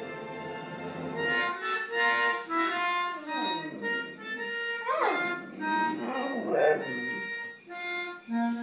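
A melodica plays a slow melody in held notes while a dog howls along. Its howls come as wavering glides that rise and fall, starting a little past three seconds in.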